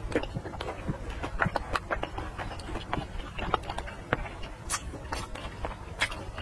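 Close-up chewing of a sausage: wet mouth smacks and many irregular small clicks, with a few sharper smacks in the second half.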